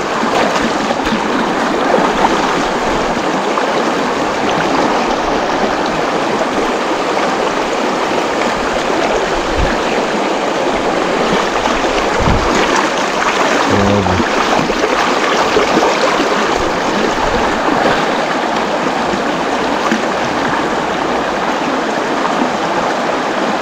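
Shallow, fast-flowing river rushing over rocks: a steady, loud wash of water, with a few dull low bumps about halfway through.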